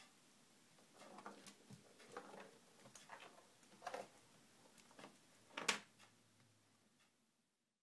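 Faint scattered clicks and taps of a corgi puppy's claws and paws on a tiled floor as it paws at a small object, the loudest tap a little before the end.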